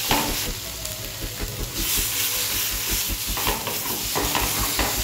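A wooden spatula stirs and scrapes a thick ginger-garlic-tomato masala with ground spices around a kadai, and the paste sizzles as it fries in oil. The masala is near the end of frying, being cooked until fragrant.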